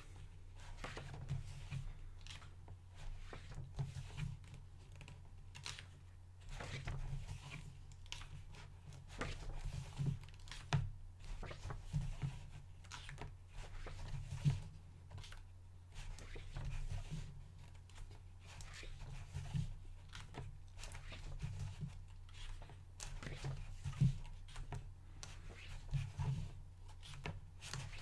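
Paper pages of a hardcover art book being turned by hand, a short rustle and flick every couple of seconds, over a steady low hum.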